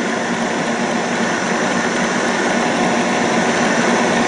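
Electric stand mixer running steadily, whisking egg whites and sugar in a steel bowl toward meringue: a constant motor hum with the whirr of the whisk.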